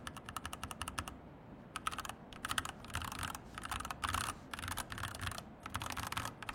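Typing on a Pressplay Rover 84 v2 tray-mount mechanical keyboard: a fast, even run of keystrokes, a short pause about a second in, then keystrokes in quick bursts with brief gaps.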